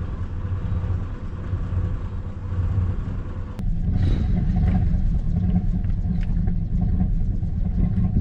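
Skid steer engine running with a steady low rumble. It becomes abruptly louder about three and a half seconds in.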